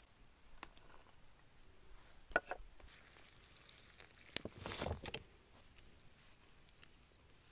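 A few faint knocks, then water poured from a plastic jug into a metal pan of sliced mushrooms and chillies: a short splash about four and a half seconds in.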